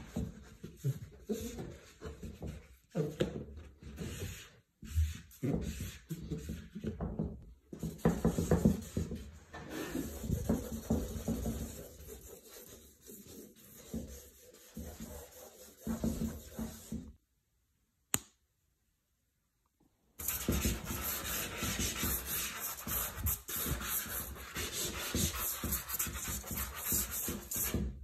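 Stick charcoal scraping and rubbing across drawing paper in irregular strokes. There is a few seconds of silence about two-thirds of the way through, after which the scratching turns dense and steady with a hiss.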